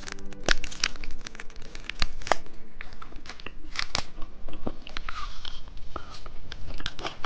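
Plastic candy wrapper being torn open and crinkled in the hands, a run of sharp crackling rustles.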